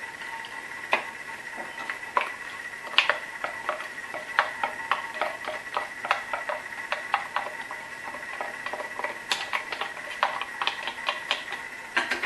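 A spoon scraping and tapping inside the plastic bowl of a small food chopper, emptying chopped onion and garlic into a frying pan, in irregular clicks and knocks. A steady high whine runs underneath.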